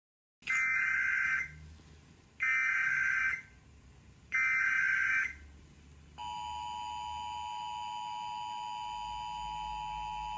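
Emergency Alert System SAME header: three bursts of warbling data tones, each about a second long and two seconds apart. About six seconds in, the steady, harsh two-tone EAS attention signal starts and keeps sounding.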